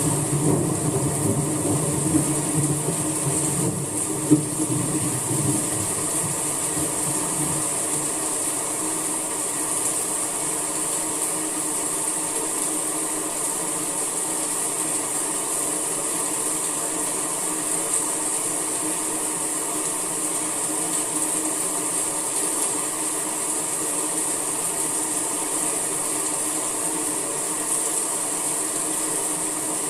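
Steady rain falling, a dense even hiss. A low engine rumble fades away over the first several seconds, and there is a single sharp tap about four seconds in.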